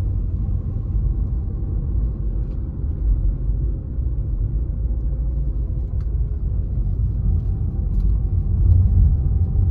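Tata Altroz on the move, heard from inside the cabin: a steady low road and engine rumble with a few faint ticks. No rattle comes from the gear lever, whose looseness has been cured with a rubber bush.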